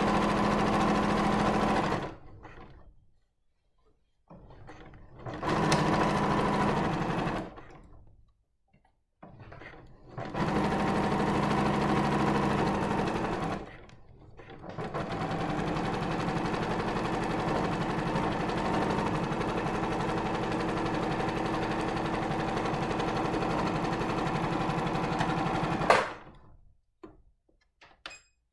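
Electric domestic sewing machine stitching a seam in short runs: it runs for about two seconds, stops, runs again briefly twice, then runs steadily for about eleven seconds before stopping with a sharp click.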